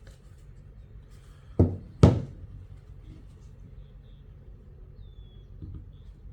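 Two sharp knocks about half a second apart: a hard object set down or bumped against a work surface while handling tools and the plastic rifle stock.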